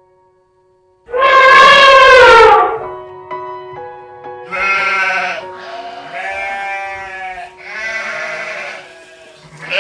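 Bleating animal calls over background music. There is one loud, drawn-out call falling in pitch about a second in, then three shorter bleats over steady music tones.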